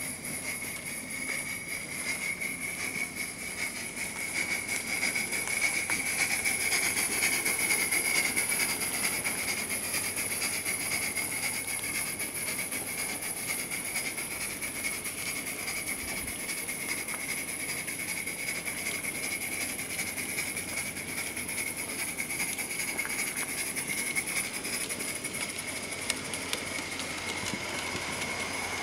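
Coal-fired Accucraft K28 2-8-2 live-steam garden locomotive running with its train of cars: a steady rolling and steaming noise with a constant high-pitched ringing over it, loudest about six to nine seconds in.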